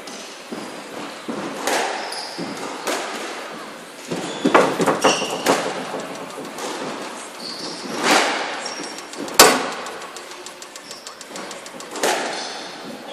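Squash rally: the ball cracking off rackets and the court walls as a string of sharp knocks, a quick cluster around four to five seconds in and the sharpest about nine and a half seconds in, echoing in the court, with short shoe squeaks on the floor between shots.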